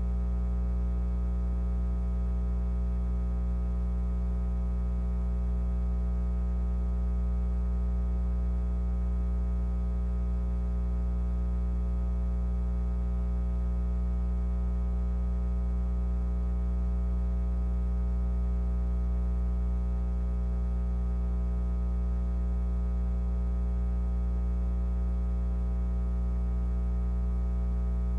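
A steady low electrical hum with many evenly spaced overtones, unchanging throughout.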